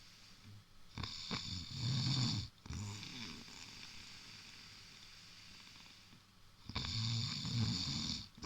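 Snoring: two long snores about six seconds apart, the first about a second in and the second near the end. Each is a low rumble with a breathy hiss over it.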